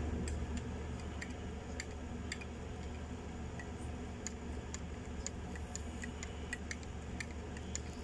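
Wire balloon whisk stirring a thick custard mixture in a glass bowl, its wires ticking lightly and irregularly against the glass, about two to three ticks a second, over a steady low hum.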